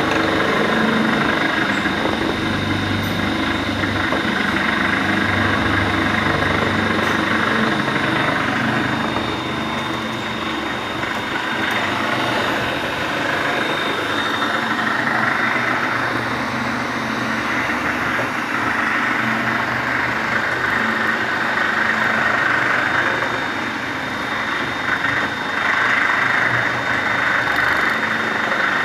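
A rotary water filter cap making machine running: a steady mechanical din with a thin high whine.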